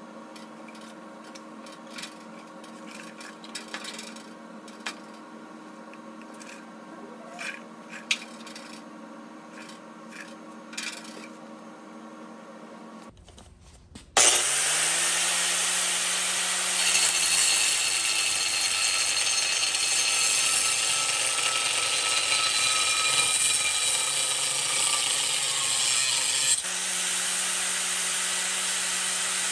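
For about the first half, a few light clicks and knocks of metal parts being handled over a steady background hum. Then an angle grinder with a cutoff wheel starts abruptly, spins up and cuts through a 3/16-inch flat steel bar. The loud, gritty cutting goes on to the end and eases slightly near the end.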